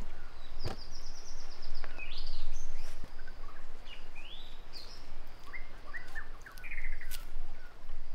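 Birds calling and chirping over a steady low background: a quick high trill about half a second in, then rising chirps and short repeated calls, with a few sharp clicks.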